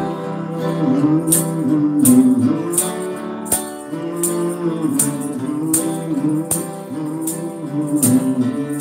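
Acoustic guitar strumming a song's instrumental intro, with jingling hand percussion accenting the beat about three times every two seconds.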